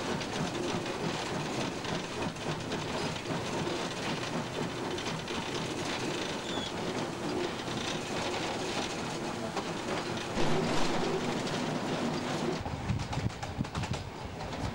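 Cab noise of a TY2 2-10-0 steam locomotive under way: a continuous rumble with wheels clattering over the rail joints. A heavier low rumble comes in near the end.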